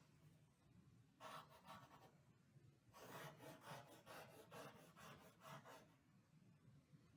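Faint scratching of a drawing tool on paper: a short burst of strokes about a second in, then a run of quick repeated strokes, roughly two or three a second, from about three seconds in until near six seconds.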